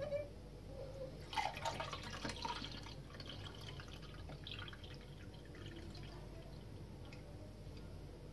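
Unripe grape juice (verjuice) pouring slowly from a glass jar into a drinking glass. The trickle is strongest between about one and three seconds in, then fades. It is poured gently so that the settled sediment stays in the jar.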